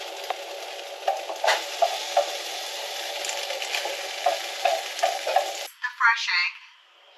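Scrambled egg (reconstituted powdered egg) sizzling in a hot nonstick frying pan while being stirred, with irregular scrapes and taps of a fork against the pan. The frying cuts off abruptly about five and a half seconds in.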